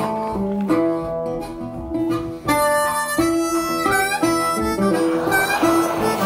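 Background music: a harmonica playing held notes over guitar.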